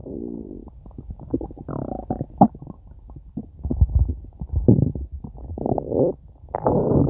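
Stomach growling and gurgling: a run of short gurgles and pops, with longer drawn-out rumbles at the start and again near the end.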